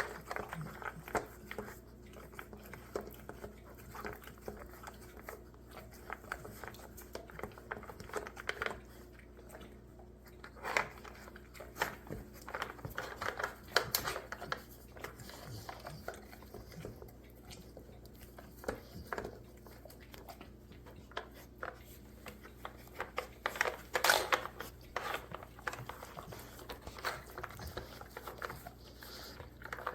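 A dog working at a treat game, nosing and pawing it: irregular small knocks, clicks and rustles, with chewing.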